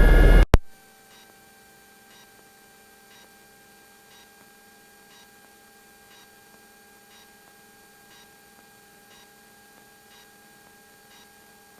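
Loud helicopter noise that cuts off abruptly about half a second in. What follows is a faint steady hum of a few constant tones, with a soft tick about once a second.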